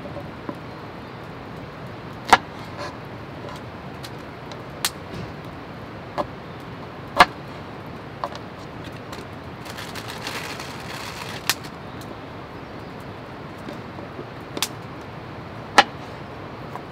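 Scattered sharp clicks and knocks, about eight of them and irregularly spaced, over a steady background hiss, with a brief rustling swell about ten seconds in.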